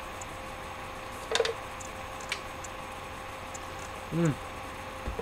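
Steady background hum with a few light clicks, and a short hum-like vocal sound near the end.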